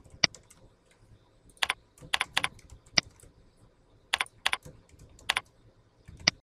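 Computer keyboard typing: about a dozen slow, irregular keystroke clicks.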